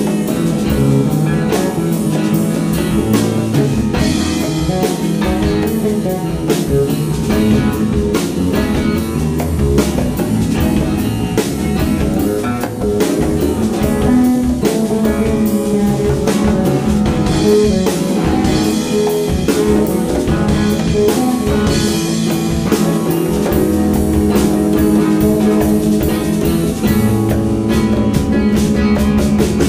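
Live band playing a blues-rock groove: electric guitar through a Roland JC-120 amp, electric bass, drum kit and congas, with a steady driving beat.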